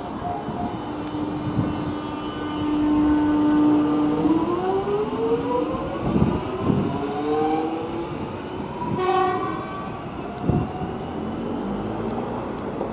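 Alstom X'Trapolis 100 electric train pulling away: its traction motors give a steady whine, then from about four seconds in several tones climb in pitch together as it accelerates. A short horn note sounds about nine seconds in, with a few thumps around it.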